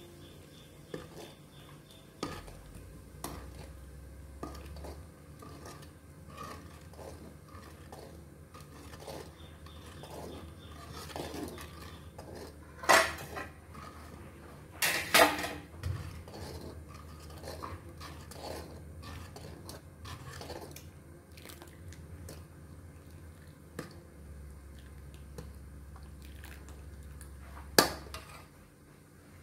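Kitchen dishes and utensils clinking and knocking as they are handled, with two louder clanks about halfway through and another near the end.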